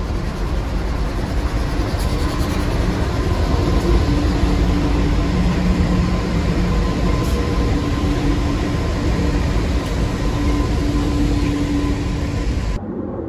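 Diesel locomotives passing close by: a steady engine drone over a heavy low rumble, cutting off suddenly near the end.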